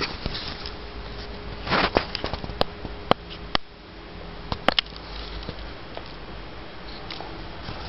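Irregular sharp clicks and a brief rustle about two seconds in, over a steady background hiss and low hum.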